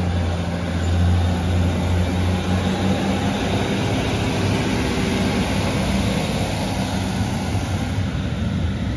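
Northern Class 156 Sprinter diesel multiple unit pulling out of the station, its underfloor Cummins diesel engines running under power with a steady low drone.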